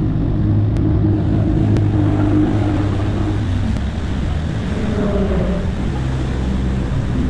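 Ford Focus race car engines idling inside a pit garage, a steady low drone with a slight rise in pitch about five seconds in.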